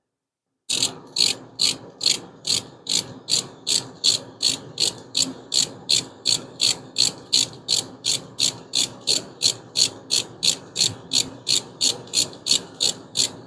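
Hand ratchet wrench being worked steadily on the Hemi's valve train: its pawl clicks about two and a half times a second, starting about a second in.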